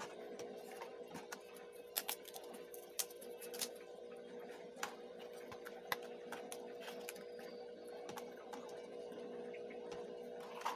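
Stiff paperboard puzzle pieces being handled and pressed together, with a scatter of sharp clicks and snaps, the loudest about two and three seconds in, over a steady low hum.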